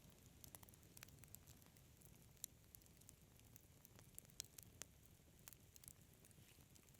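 Fire burning in a fireplace, crackling faintly: irregular sharp pops and ticks, now single, now several close together, over a soft low rumble.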